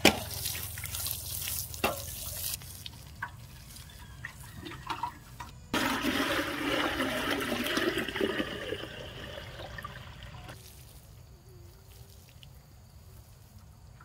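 Water pouring and splashing: a knock and scattered splashes at first, then a steady pour that starts suddenly about six seconds in and cuts off about five seconds later.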